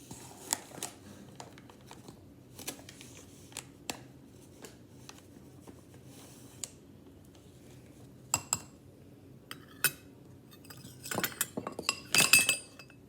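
A spoon clinking and tapping against a mixing bowl while stirring pancake batter, in scattered light taps with a faster, louder run of clinks near the end.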